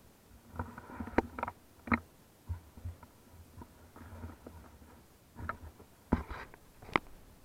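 Handling noise from an action camera being picked up and turned over: irregular sharp knocks and clicks on its housing with short rubbing and rustling between them. The loudest knocks come just after a second in, near two seconds, and twice near the end.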